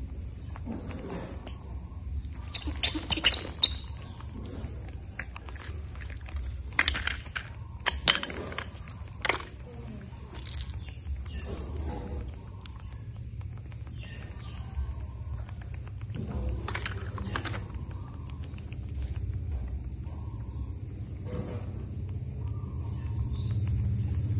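Insect trilling steadily on one high pitch in long stretches broken by short gaps, over a steady low hum. Scattered sharp clicks and rustles sound over it, loudest about three seconds in and again around seven to eight seconds in.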